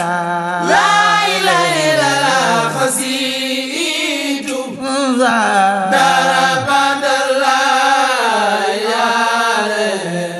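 A male voice chanting a khassida, a Mouride devotional poem sung in Arabic, in long ornamented phrases whose pitch slides and bends, over a steady low accompanying tone.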